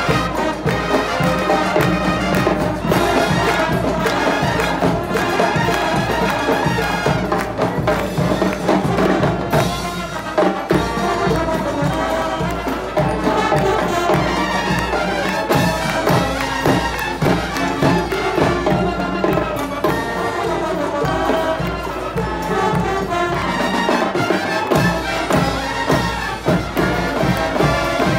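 Student marching band playing: brass, trumpets and trombones, over a steady drum beat.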